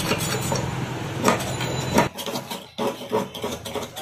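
A steel ruler scraping and knocking against the cast-metal mixing tube of a gas stove burner, loosening caked dirt and carbon that clog it, in irregular strokes. A low hum in the background stops about two seconds in.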